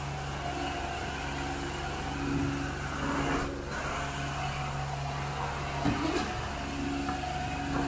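Carpet-cleaning extraction wand drawn in strokes over carpet: steady vacuum suction hiss over the hum of the extraction machine, with a tone that comes and goes about every second as the wand moves.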